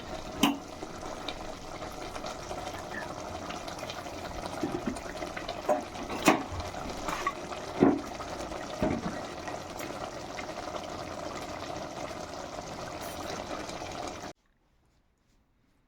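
Steady kitchen liquid noise with a few sharp knocks of utensils. It cuts off suddenly near the end.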